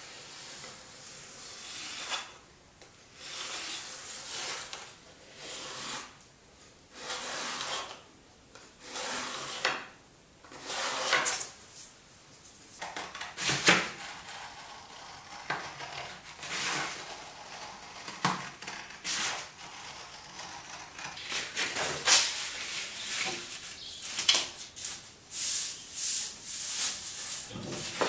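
A large sheet of paper being cut with scissors and handled: repeated rustling swishes every second or two, with a few sharp clicks.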